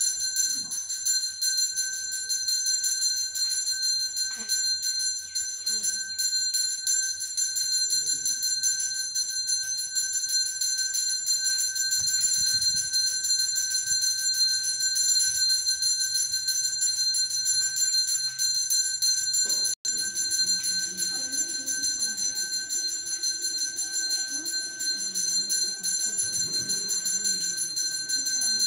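Temple puja bell rung without pause, a rapid metallic jangling with steady high ringing tones. A lower murmur joins it about twenty seconds in.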